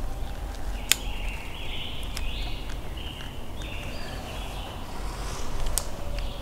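A songbird singing a run of short, high phrases for about three and a half seconds, with a sharp click about a second in.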